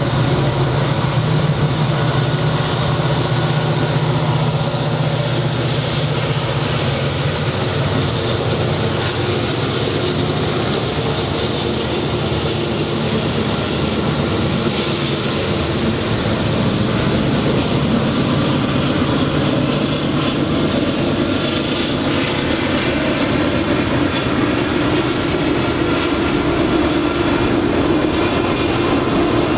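Norfolk Southern diesel locomotives approaching and passing close by, with a loud, steady engine drone. About two-thirds in the drone gives way to the rumble of autorack freight cars rolling past on the rails.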